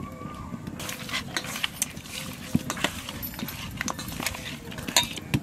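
Pieces of raw aar (river catfish) being mixed by hand with salt and turmeric in a steel bowl. Irregular wet clicks and taps of the fish pieces knocking against each other and the metal bowl, starting about a second in.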